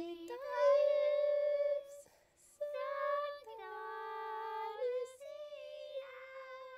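Unaccompanied singing voice, slow, in long held notes that step up and down, with short breaks between phrases; it cuts off abruptly at the end.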